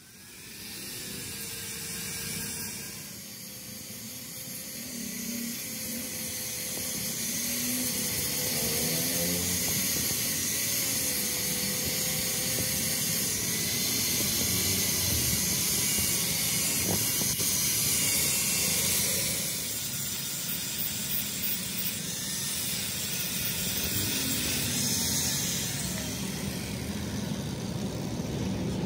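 Handheld angle grinder with an abrasive disc grinding rust and paint off the steel collar and cylinder of an old 30-ton hydraulic jack, a harsh steady hiss over the motor's whine. The motor's pitch dips and wavers as the disc is pressed on and eased off, most clearly around three seconds in and again around twenty seconds.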